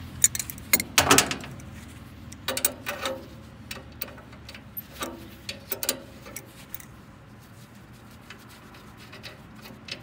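Metal clicks and clinks of an adjustable wrench and gloved hands working a refrigeration line fitting, loosening it to take out its strainer screen. The clicks come in short clusters, the loudest about a second in, more at about three and six seconds, and one near the end.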